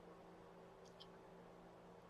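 Near silence: faint steady room hum with two tiny clicks just under a second in.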